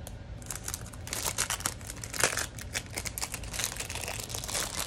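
A clear plastic packaging sleeve crinkling as it is handled and opened, with a rapid, irregular run of crackles.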